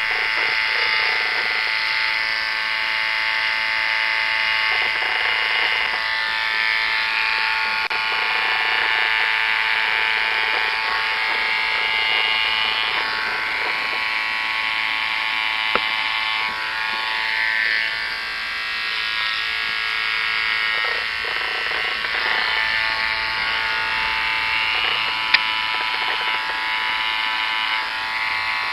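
Electric hair clippers buzzing steadily as they shave outline lines into hair. The tone shifts now and then as the blade works against the head, and there is a single sharp click about three quarters of the way through.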